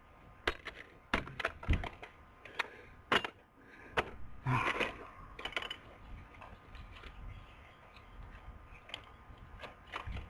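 Sharp cracks and clicks of a TV remote control's plastic casing and parts being broken apart. Several snaps come close together in the first five seconds, then the clicks grow sparser.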